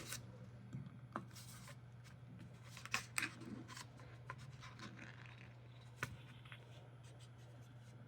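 A sardine tin being opened: a few faint metallic clicks and scrapes as the lid is lifted and peeled back. The loudest come about three seconds in, and there is a sharp click about six seconds in.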